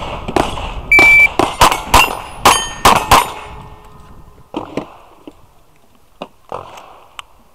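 A shot-timer start beep, then a rapid string of .22 rimfire semi-auto pistol shots over about two seconds, each with the ring of a struck steel plate. A few faint clicks follow as the pistol is handled.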